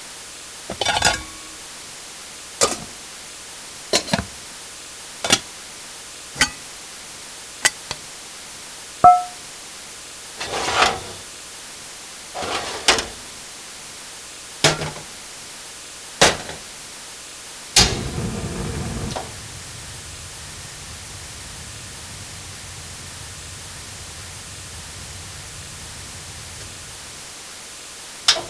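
A run of short separate cooking-utensil sound effects: clicks, knocks and clatters about every second and a half, one with a brief metallic ping about a third of the way in. Past the middle, a longer clatter gives way to a low steady hum for several seconds.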